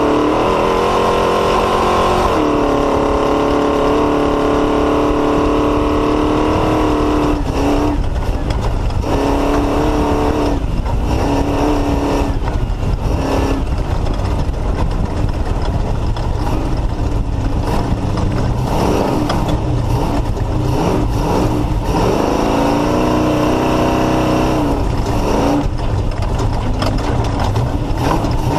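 Off-road race car's Mullenix-built race engine running hard at a steady pitch, then dropping out and coming back several times in the middle as the throttle is lifted and reapplied, and rising again in pitch near the end.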